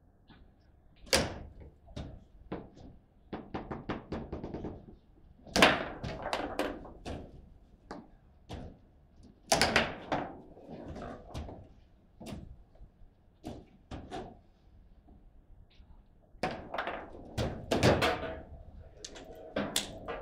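Foosball being played: rods sliding and slamming, and the hard ball cracking against the plastic players and the table walls, in sharp irregular knocks and quick rattling clusters.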